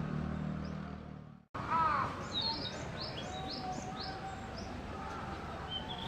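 Male Narcissus flycatcher singing: a series of short, clear, rising whistled notes. The sound fades to a brief silence about a second and a half in, then the song picks up again.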